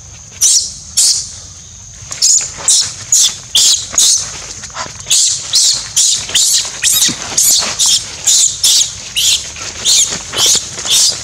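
Infant macaque screaming again and again in short, high-pitched, falling squeals, about two a second, over a faint steady high hum.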